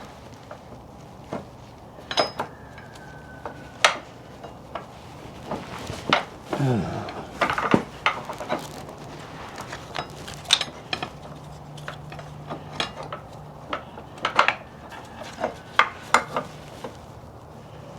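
Metal hand tools and parts clinking and clanking as they are handled and set down, with a dozen or so separate sharp clinks and a short scraping sound about seven seconds in.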